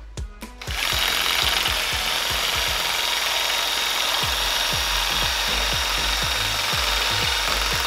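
Homemade reciprocating saw, an angle grinder driving a hacksaw blade, starting up just under a second in and then sawing steadily into a motor armature's copper commutator.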